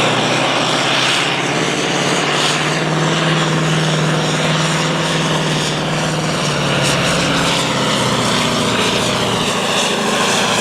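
Pulling truck's V8 engine running hard under load during a test pull with the weight sled, a loud steady drone whose pitch rises a little near the end.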